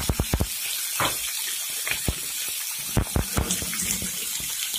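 Raw boneless chicken pieces starting to fry in a little oil in a non-stick frying pan: a steady sizzling hiss with scattered pops and clicks.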